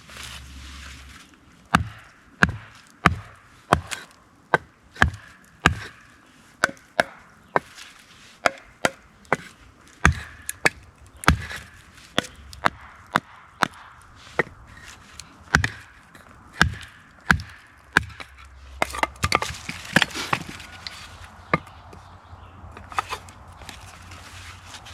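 Firewood being split by batoning a knife: a wooden baton strikes the knife's spine again and again, about one to two sharp knocks a second, with a denser run of cracking about 19 seconds in.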